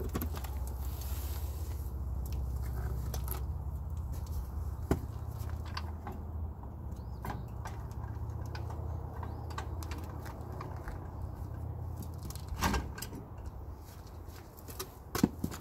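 Scattered light knocks and clicks as wooden blocks are handled and set under a boat trailer's tongue jack, over a steady low rumble.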